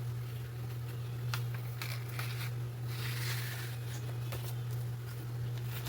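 Old paper letters being handled and shuffled: soft rustles and light clicks of paper over a steady low electrical hum.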